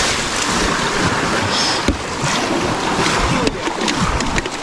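Whitewater rushing and splashing around a kayak running a river rapid, a steady loud churn of water. A run of short sharp splashes and knocks comes in the last second.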